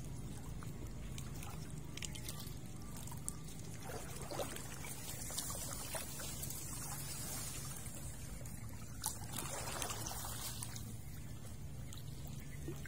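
Water running steadily, with a few light clicks and knocks scattered through it.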